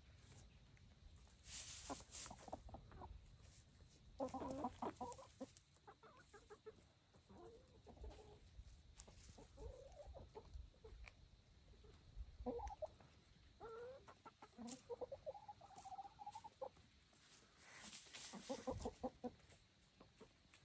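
Ameraucana hens clucking in several short bouts, with one longer call rising in pitch about two-thirds of the way through. Two brief rustling noises, about two seconds in and near the end.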